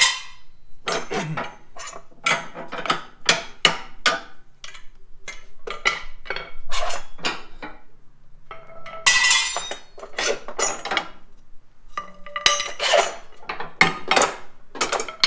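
Hand tools, bolts and steel suspension hardware clinking and clanking as the factory pull plate on a Can-Am Maverick X3's rear suspension is unbolted. There is a run of sharp, irregular metallic clinks, with a denser clatter lasting about a second some nine seconds in.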